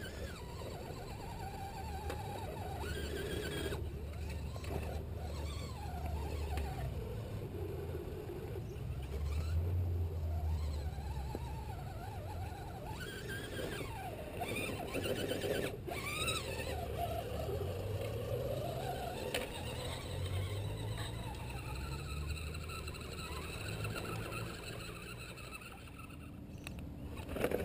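Electric motors and geared drivetrains of radio-controlled Axial rock crawlers (an AX-10 and a Wraith) whining as they climb, the pitch rising and falling with the throttle, over a steady low rumble.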